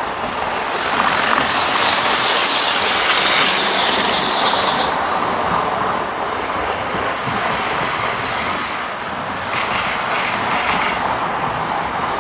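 Model electric train running along the layout's track, a steady hissing rattle of its motor and wheels on the rails. It is louder from about one to five seconds in and again briefly around ten seconds.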